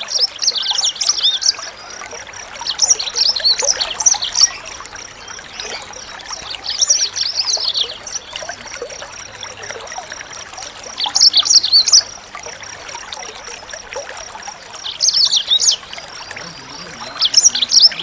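A small songbird singing short phrases of rapid high chirps and trills, six bursts a few seconds apart, over a steady hiss of running water and a thin, continuous high tone.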